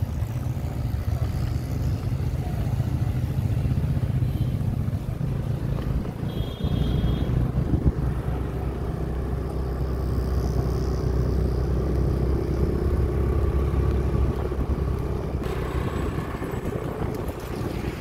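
Motorcycle riding along a wet road: steady engine rumble with wind buffeting the microphone. A brief high beep sounds about six and a half seconds in.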